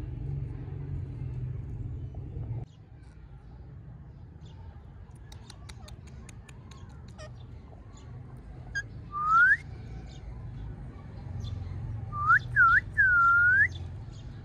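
Clear whistled notes: one rising whistle about nine seconds in, then near the end three quick whistles that swoop down and back up, the last one longest; faint clicks come before them.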